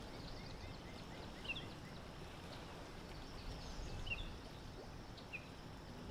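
Outdoor ambience: a steady low background hiss with a few short, high bird chirps, about three times.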